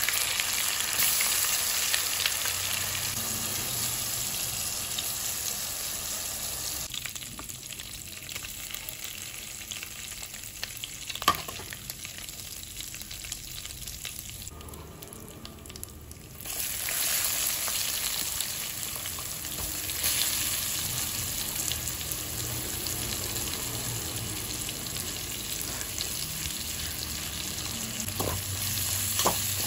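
Hot oil sizzling in a pan as masala-coated prawns fry. The sizzle dies down to a softer bubbling in the middle, then rises again sharply about two-thirds through. Near the end sliced onions are put into the oil, with a few clicks of a spatula.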